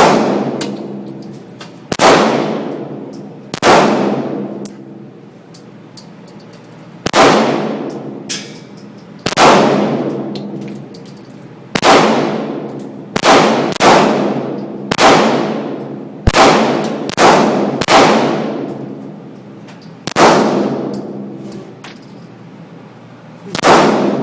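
A handgun fired about fourteen times at uneven spacing, sometimes two shots in quick succession. Each shot is a sharp crack followed by a long, ringing decay.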